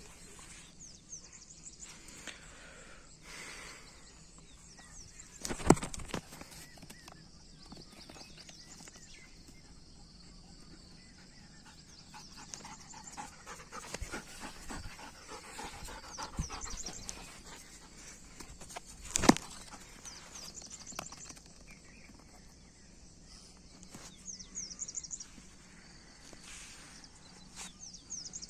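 A Doberman panting, with two loud sharp knocks, one about six seconds in and another about nineteen seconds in.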